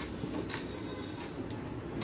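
Faint handling sounds of fingers picking at food on a stainless steel plate.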